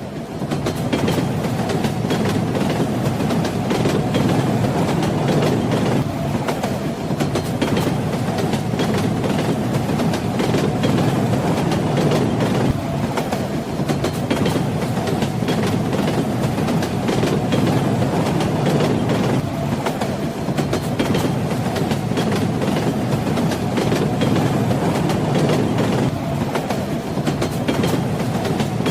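Train wheels running over the rails at steady speed, a continuous rumble with fine rapid clicking from the wheels and rail joints and a faint steady tone above it. It fades in at the very start.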